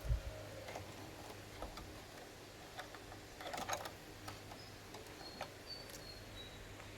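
Amplifier giving off a steady low hum, the humming fault being repaired, under scattered small clicks and handling noises, with a brief rustling patch about three and a half seconds in.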